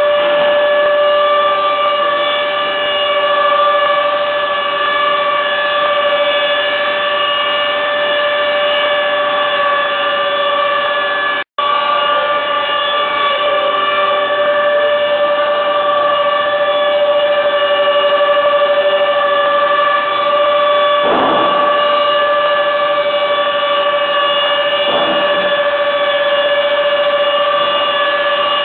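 Woodworking shop machinery running with a loud, steady whine made of several tones. Two short knocks of timber being handled come in the second half, and the sound drops out for a moment near the middle.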